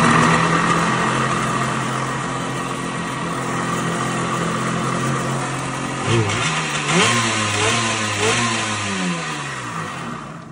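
Kawasaki JS550 two-stroke twin jet ski engine, ported, polished and fitted with an expansion pipe, running on its first start in over ten years: a steady fast idle, then several quick throttle blips from about six seconds in, each rev rising and falling, before it drops back down near the end.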